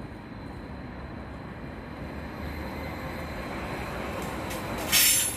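A Vy Class 75 (Stadler FLIRT) electric multiple unit moving slowly through the station: a steady low rumble that grows a little louder. Near the end comes a short, loud hiss.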